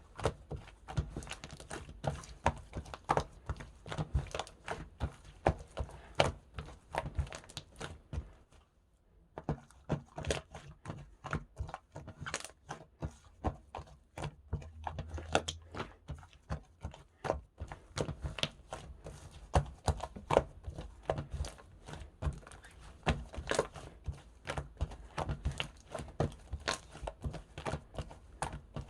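Slime being squeezed, folded and pressed by hand, giving a dense, irregular run of small clicks, pops and crackles, with a brief pause about nine seconds in.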